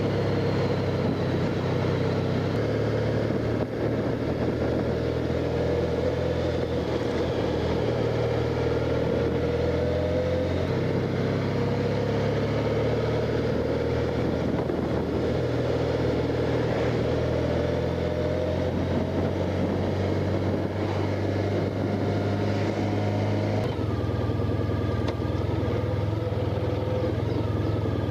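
Honda Crosstourer's V4 engine running under way, with wind and road noise over it; the engine note changes in steps twice, about ten seconds in and again near the end.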